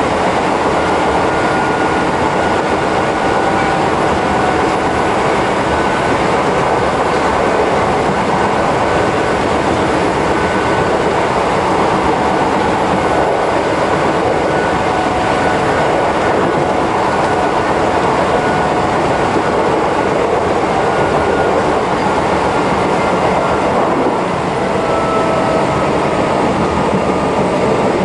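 In-car running noise of a Chichibu Railway 5000 series motor car (ex-Toei 6000) on continuous welded rail: a steady, dense rumble of wheels on rail and motors, with a faint high whine from its WN-coupled drive gears running through it.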